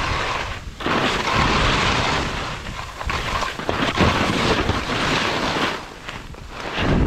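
Skis scraping and hissing across firm, crusty snow through a series of turns, the noise surging and dropping briefly twice, with wind rushing over the microphone.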